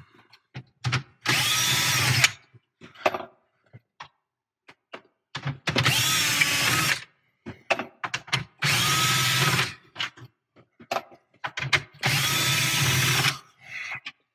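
Cordless drill/driver with a socket bit running four times, about a second each, backing out the four 7 mm screws that hold the dash screen in. There are small clicks and handling noises between the runs.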